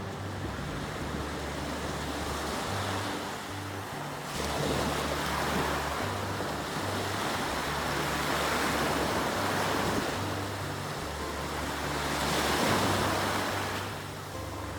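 Sea surf washing in, the rush of the waves swelling and falling several times, with soft background music underneath.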